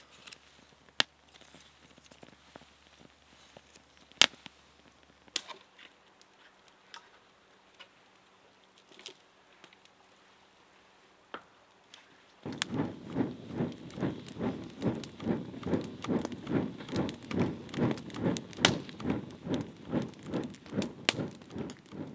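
A small kindling fire crackling, with sharp pops and clicks of split sticks. From about twelve seconds in, a louder steady rhythm of soft strokes takes over, about three a second.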